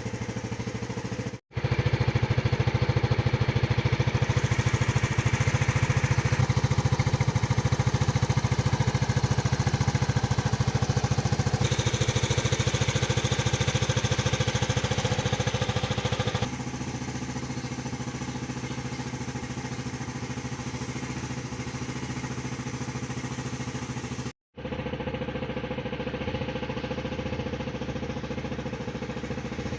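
Yamaha Nouvo Z scooter's single-cylinder four-stroke engine, modified with a 24 mm Nibbi carburettor, running steadily. It is louder for the first half and quieter after, and the sound breaks off for an instant twice.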